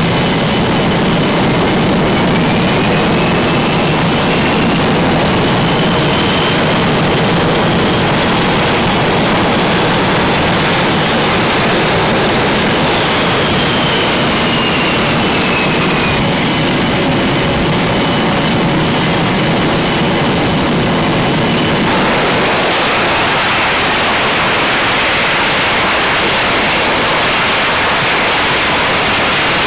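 F/A-18 jet engines running on a carrier flight deck: a loud, steady rush of jet noise with a high turbine whine that rises in pitch a couple of seconds in and falls again around halfway. About two-thirds of the way through the whine drops away, leaving an even rushing noise.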